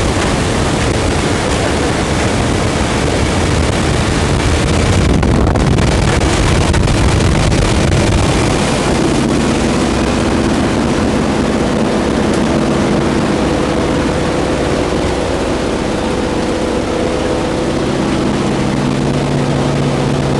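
Steady drone of the jump plane's piston engine, heard from inside the cabin, mixed with a heavy rush of wind through the open door. From about nine seconds in, the rush eases and the engine's even hum stands out more.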